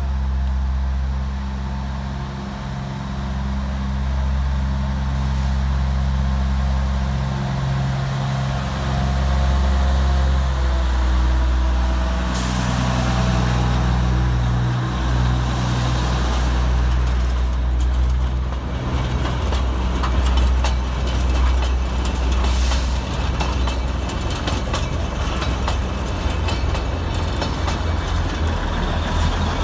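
Matheran Hill Railway narrow-gauge diesel locomotive running past close by, its engine a steady low rumble. About twelve and sixteen seconds in come two bursts of hissing, and in the second half the coaches rattle and clatter over the rails as they roll by.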